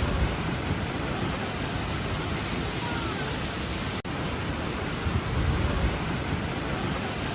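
Steady roar of a large waterfall, an even rushing of falling water, broken by a momentary dropout about four seconds in.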